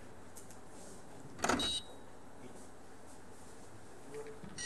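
A single sharp clack of ivory-hard billiard balls striking each other on a carom table during a shot, about a second and a half in, with a short ring after it. A high electronic beep starts right at the very end.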